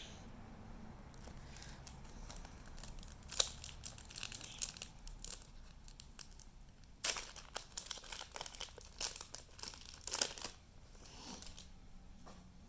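Foil Pokémon booster pack wrapper crinkling and tearing as it is torn open, in several short crackly bursts, the loudest about three seconds in and from about seven to ten seconds in.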